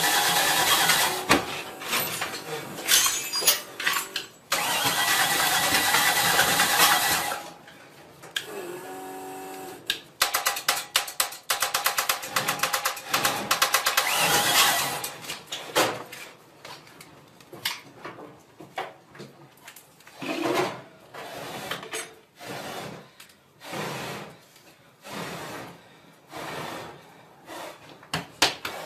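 Car engine sounds in a string of short clips that change abruptly, including a loud noisy stretch at first and a run of rapid even clicks in the middle.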